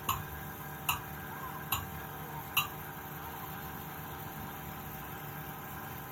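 Four sharp taps, evenly spaced a little under a second apart, over a steady low hum; the taps stop about three seconds in and the hum carries on.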